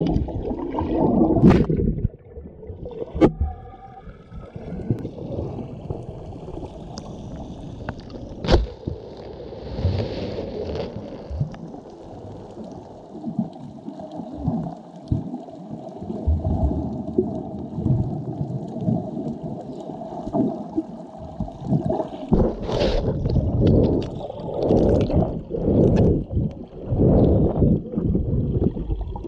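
Underwater sound picked up by an action camera: a muffled rush of water and bubbles with scattered clicks and knocks. A steady hum runs through the middle stretch, and the water noise surges louder near the end.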